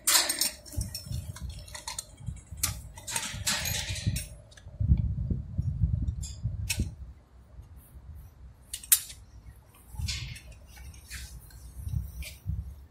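Scattered metal clicks and clinks from a ratchet strap's ratchet and hooks being worked by hand, with a sharp click about nine seconds in, over patches of low rumbling.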